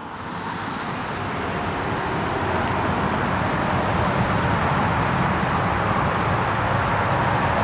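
Steady rush of heavy interstate highway traffic, growing louder over the first couple of seconds and then holding even.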